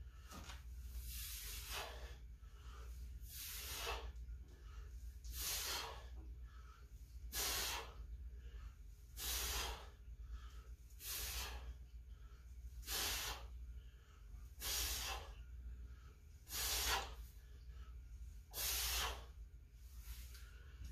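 A man's short, forceful exhalations, about ten of them, one every two seconds or so, each paced to a goblet squat rep under load. A steady low hum runs underneath.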